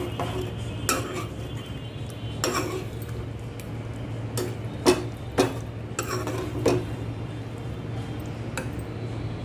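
Metal ladle stirring thick curry in a steel kadai, scraping and clinking against the pan's sides, with a few sharper clanks a little after the middle. A steady low hum runs underneath.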